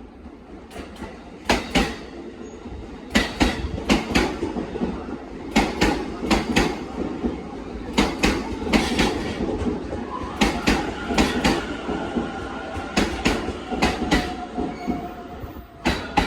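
Electric commuter train arriving at a station platform, its wheels clacking in pairs over rail joints. From about halfway through, a steady high squeal joins the clacking as the train slows.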